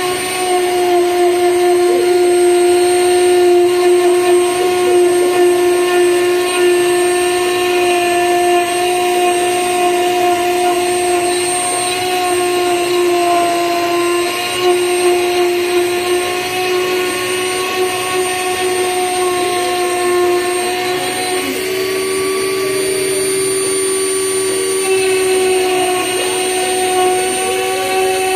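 Small hobby CNC router with a rotary-tool spindle engraving a slice of log: a steady high motor whine with the hiss of the bit cutting wood, its pitch shifting slightly a few times as the machine moves.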